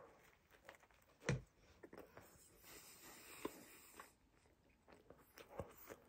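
Faint chewing of a microwaved sesame-bun chicken burger: a few quiet, scattered mouth clicks, the most distinct one about a second in.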